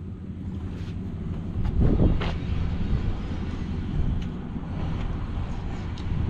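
Steady low rumble of a vehicle engine running, with a louder clunk about two seconds in and a few light clicks.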